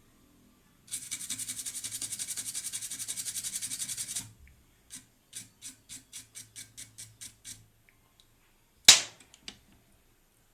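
A freshly soldered circuit board being scrubbed clean: about three seconds of rapid, even scratching strokes, then slower separate strokes, then one sharp click near the end.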